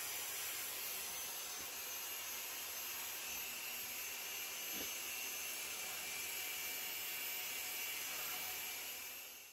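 Small benchtop belt sander running with a 60-grit belt while a steel knife blade is pressed against it for shaping. It makes a steady hissing grind with a faint high whine.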